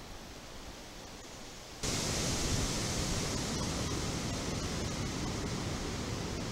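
Steady wind noise, a broad even hiss with no distinct events, that jumps suddenly louder a little under two seconds in and holds there.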